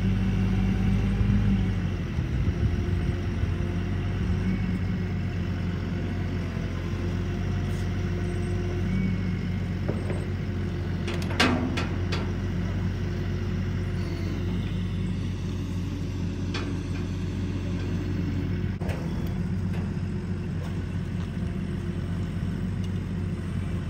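Boom truck crane's diesel engine running steadily while it lifts and swings a roof truss, with a single brief knock about halfway through.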